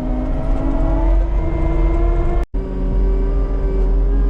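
Diesel engine of heavy equipment running steadily under load, its pitch drifting slowly up and down. The sound cuts out for an instant about halfway through.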